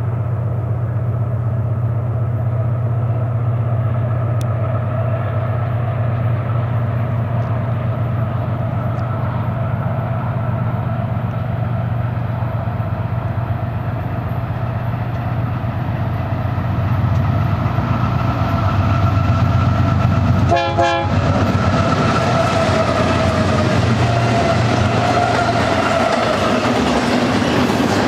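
BNSF GE AC4400CW diesel locomotive leading a double-stack container train as it approaches and passes, a steady low drone with a pitched hum over it. The sound gets louder about two-thirds through as the locomotives go by, then the container cars rumble and clatter past.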